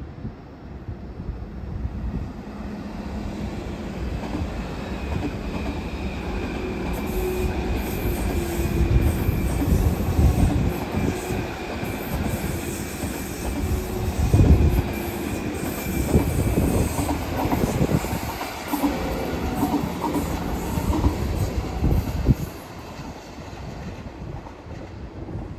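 A train passing on the rails, growing louder over the first few seconds, with a steady wheel squeal over the rumble and a quick run of clicks. The sound drops off suddenly a few seconds before the end.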